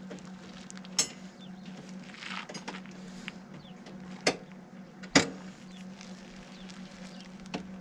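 Sharp clicks and knocks from handling the brake cable and metal parts: three of them, about a second in, at about four seconds and just after five seconds. The last is the loudest. They sit over a steady low hum.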